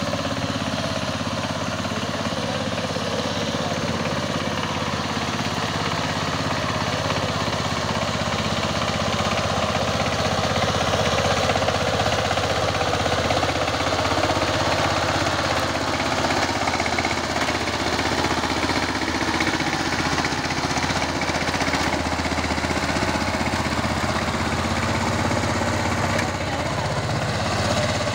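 Power tiller's single-cylinder diesel engine running steadily with a rapid, even beat, slightly louder from about ten seconds in.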